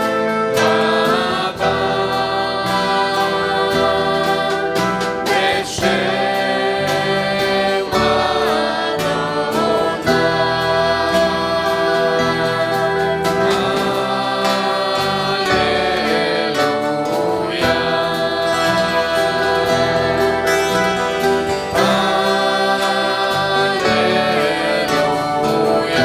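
Worship music: several voices singing together with instrumental accompaniment, continuously and at a steady level.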